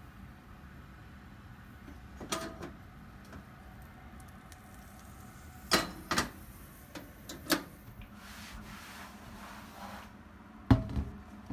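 Cast iron skillet knocking against metal as it is handled, a few sharp clanks spread out, then a louder knock near the end as it is set down on the stainless steel counter.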